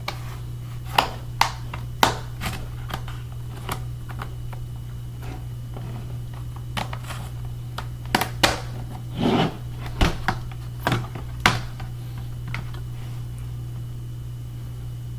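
Scattered sharp plastic clicks and taps, with a short scraping rub about nine seconds in, as a laptop's plastic bottom cover is pried loose and handled.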